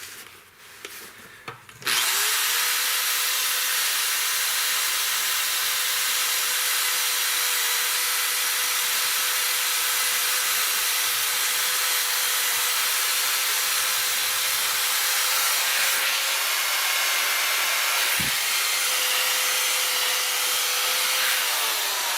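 Electric drill spinning a wire brush against rusty steel pliers, scouring off the rust. It starts about two seconds in, runs steadily with a motor whine over a harsh scratching hiss, and slows down near the end.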